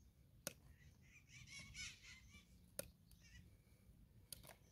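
Near silence with a few faint, sharp clicks from hoof-trimming tools working a horse's hoof. Faint bird chirping comes in around the middle.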